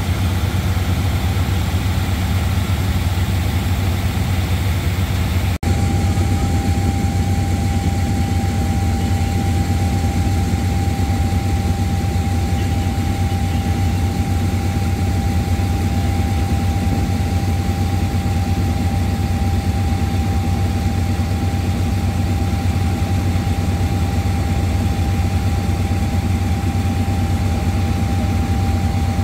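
GEK-class diesel-electric locomotive No. 4029 idling at a standstill: a steady, loud low engine rumble. About five and a half seconds in, after a brief break, a steady high tone joins it and holds.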